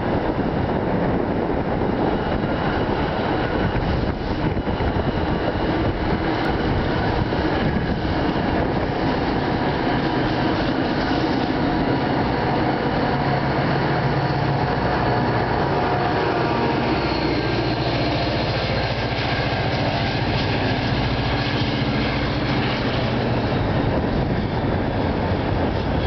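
Departing push-pull commuter train passing close by: rail cars' wheels rumbling along the track, then the GP40PH-2B diesel locomotive pushing at the rear goes by with a low engine drone in the second half.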